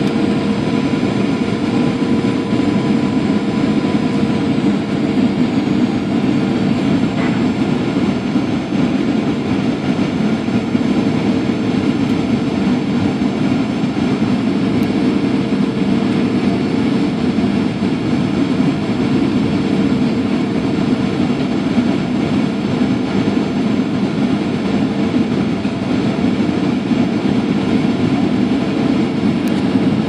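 Steady cabin noise of a Boeing 737-800 in flight, heard inside the cabin beside the wing: the CFM56-7B turbofan engines' constant hum over the rush of airflow.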